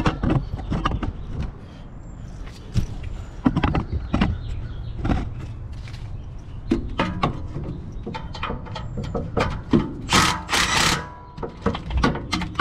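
Irregular clinks, clicks and knocks of hand tools and metal parts being handled during exhaust work under a car. About ten seconds in there is a denser, harsher burst of noise.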